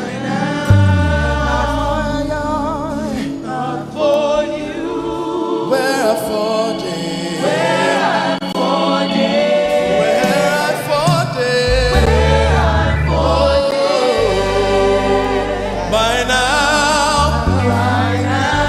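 Live gospel worship music: a choir singing with instrumental backing, with deep bass notes coming in about twelve seconds in.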